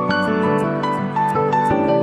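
Soft instrumental background music, a gentle new-age style tune played as a steady stream of notes.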